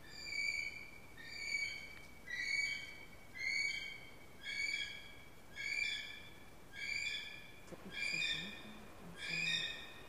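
Kiwi calling: a series of shrill whistles, each about half a second long, repeated about once a second.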